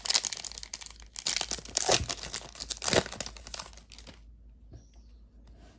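Foil booster-pack wrapper crinkling and being torn open, with sharp crackles near the start and about two and three seconds in, dying away about four seconds in.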